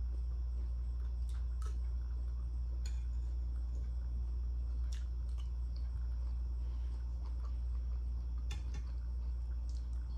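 Small eating sounds over a steady low hum: a metal spoon scraping and clicking on a ceramic plate and chewing, in scattered short clicks, with a bite into boiled corn on the cob near the end.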